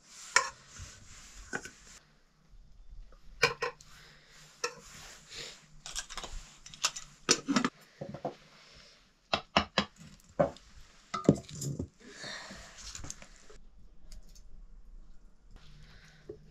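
Irregular clinks, knocks and scrapes of serving utensils on metal cookware: a wooden spoon on a metal rice pot and steel plate, then a steel ladle scraping and knocking in a black iron wok of chicken curry.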